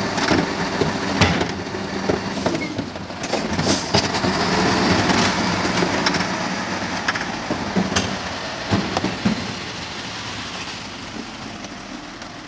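Faun Variopress garbage truck's diesel engine running, with irregular metallic clanks and knocks from its rear loading equipment. The clanks bunch up a few seconds in, and the sound fades near the end.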